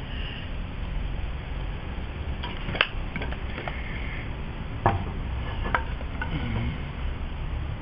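Hands handling tools and materials at a workbench: a few sharp clicks and knocks, the loudest about three and five seconds in, over a steady low rumble.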